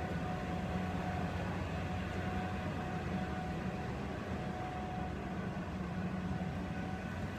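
Steady low drone of a vehicle in motion, with a faint constant higher tone over it.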